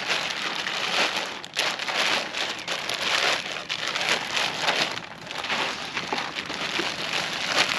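Packaging rustling and crinkling as it is handled and sorted through, an uneven crackly noise that swells and dips.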